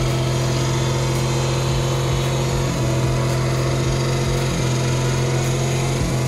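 Pickup truck engine held at high, steady revs during a burnout, its rear tyres spinning in place. There are brief dips in the note every couple of seconds.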